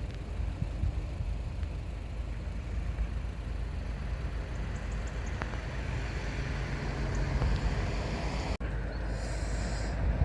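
Steady low outdoor rumble, mostly wind buffeting the microphone, with a sound like distant road traffic under it. The sound drops out for an instant near the end.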